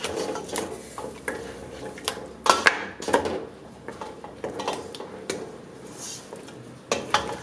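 Wooden spoon knocking and scraping against a non-stick pressure-cooker pot while spice-coated pieces of meat are stirred and turned, with irregular clatters. A few knocks stand out as louder, about two and a half seconds in, again at three seconds and again near the end.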